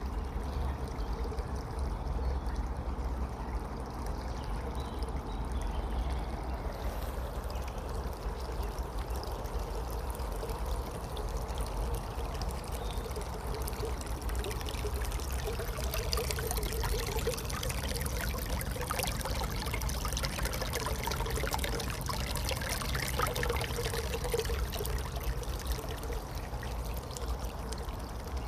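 Stream water trickling and splashing steadily, over a low rumble of wind on the microphone; the splashing gets busier in the second half.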